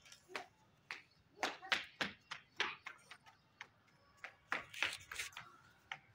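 A quick, irregular series of light clicks and taps, about fifteen of them, some ringing briefly.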